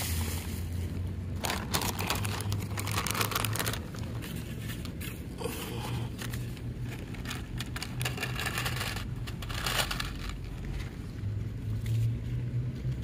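Plastic cat-food packaging and bags crinkling and rustling in irregular bursts while being handled, over a low steady hum.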